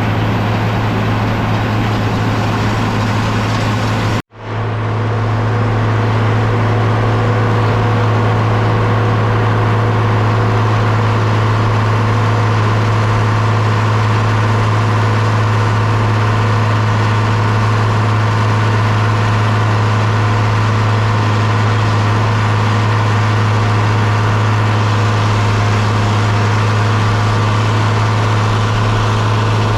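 John Deere 4230 tractor's six-cylinder diesel running steadily with a deep, even hum. The sound cuts out abruptly about four seconds in and fades back up within a second or two.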